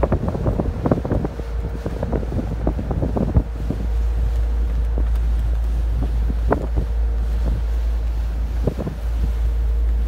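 Wind buffeting the microphone in irregular gusts, heaviest in the first few seconds, over the steady low rumble and faint steady hum of a moving car ferry.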